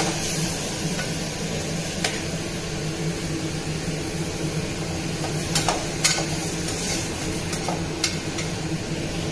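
Tomatoes cooking in an aluminium pressure cooker on a gas stove, stirred with a slotted spatula: a steady hiss with a few sharp knocks of the spatula against the pot.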